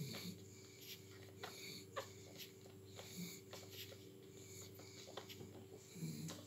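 Ten-day-old pug puppies nursing: faint, irregular wet suckling clicks with three short, soft low grunts, over a steady low hum.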